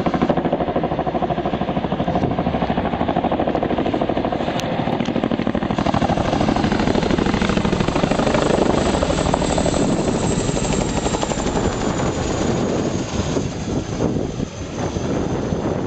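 Boeing CH-47 Chinook tandem-rotor helicopter flying past, its rotor blades beating rapidly and steadily, with a faint high turbine whine that slowly falls in pitch over the second half.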